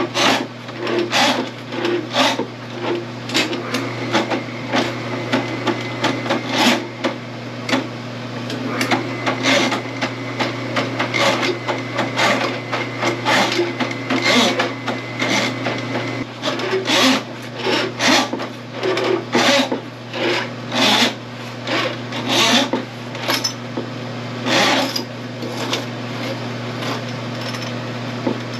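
Electric drain auger running with a steady motor hum while its spinning cable knocks and scrapes inside the drain line, feeding toward a main line clog; the knocks come irregularly, about one or two a second.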